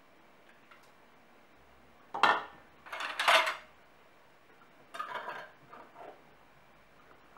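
Kitchenware clinking and clattering: a plastic jar funnel lifted off a glass jar and set down into a ceramic bowl, then a metal lid screwed onto the glass jar with a few softer clinks about five seconds in.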